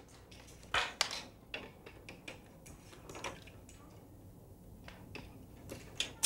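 Scattered light plastic clicks and clacks from plastic weights being hung on and handled on a plastic math balance beam, a few sharp taps at irregular moments, the clearest about a second in and near the end.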